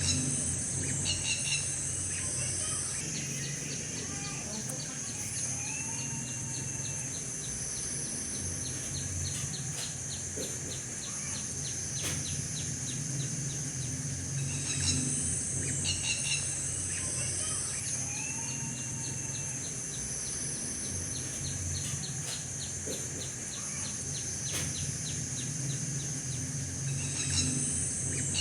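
Outdoor nature ambience: a steady high insect drone and rapid ticking chirps, with scattered short bird chirps over a low hum. The same pattern repeats about every 13 seconds, as a looped background track does.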